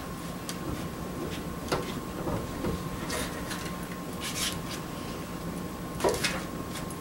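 Hands handling paper-wrapped salt pork and cookware: short rustles of paper and a couple of light knocks, one about a second and a half in and one near the end.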